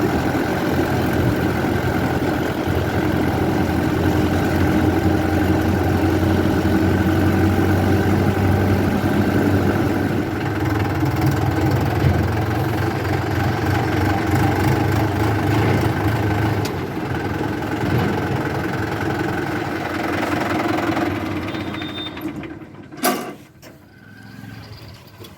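A heavy diesel engine runs steadily, then fades away near the end, and a single sharp click follows.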